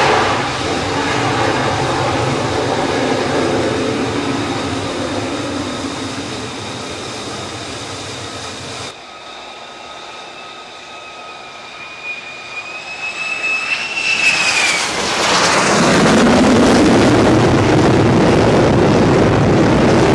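F-35C jet engine noise, loud at first and fading over several seconds as the fighter launches from the carrier catapult and climbs away. After an abrupt cut about nine seconds in, a high jet whine grows. It gives way to loud jet noise for the last five seconds.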